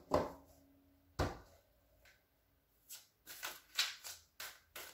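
A deck of tarot cards being shuffled by hand: a couple of short papery strokes near the start, a pause, then a quick run of strokes about three a second.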